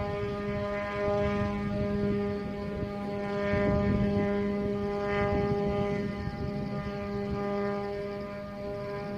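Helicopter running steadily: a constant pitched drone over a low rumble, which swells a little around the middle.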